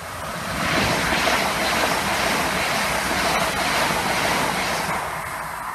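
Passenger train passing at speed: a rushing rumble of wheels on rail. It swells about half a second in, stays loud for about four seconds, then begins to fade as the train draws away.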